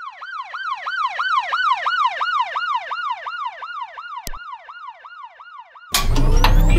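Emergency vehicle siren sounding in quick falling sweeps, about three a second, swelling in and then fading away. A single sharp click about four seconds in, and a loud, deep electronic music hit cuts in near the end.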